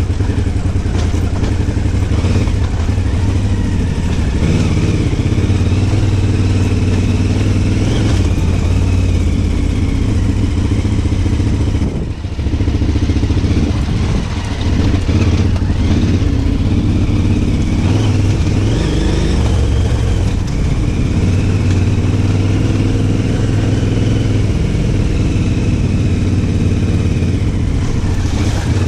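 Motorcycle engine running as it is ridden, its note rising and falling with the throttle, with wind and riding noise on the microphone. The engine briefly drops off about twelve seconds in, then picks up again.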